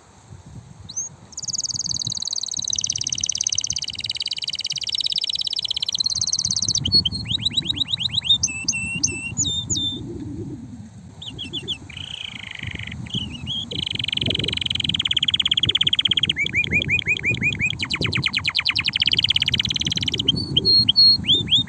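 Male domestic canary singing in long phrases of fast trills and rolls, each a rapid string of repeated notes, with a brief break about halfway, over a low rumble.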